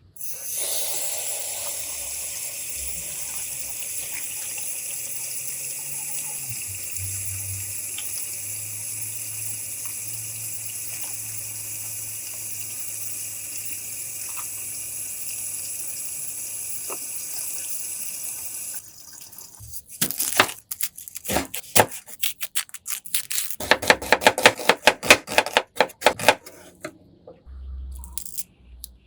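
Tap water running steadily into a sink for about eighteen seconds, then shutting off suddenly. A quick run of sharp knocks and taps follows.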